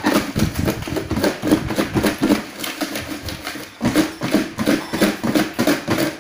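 Batter-fried vegetables being shaken hard in a lidded clear plastic container with seasoning powder, rattling and knocking fast against the plastic walls. The shaking eases briefly about three and a half seconds in, then starts again.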